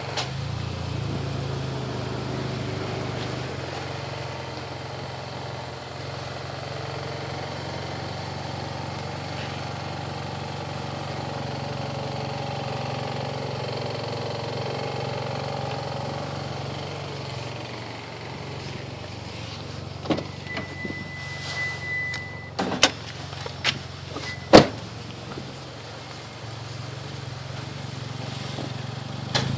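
Mitsubishi Lancer Evolution X GSR's turbocharged 2.0-litre four-cylinder idling steadily. About two-thirds of the way through come a few sharp clicks and knocks and a brief high steady tone. The owner found these engine noises to be normal.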